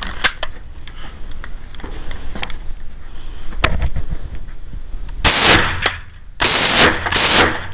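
Uzi submachine gun firing three short bursts in quick succession, starting about five seconds in, after a few light clicks as the gun is handled and aimed.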